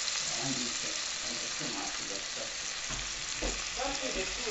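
Chopped onions and tomato sizzling steadily in oil in a cooking pot, stirred with a wooden spoon.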